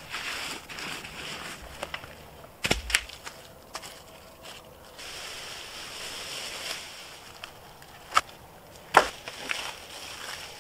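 Footsteps crunching through dry fallen leaves, with sharp cracks of dead wood as branches are gathered: two close together about three seconds in and two more near the end.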